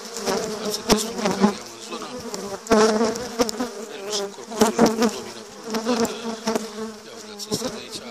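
Carpathian honeybees buzzing around their hives, a steady low hum, with scattered clicks and knocks over it.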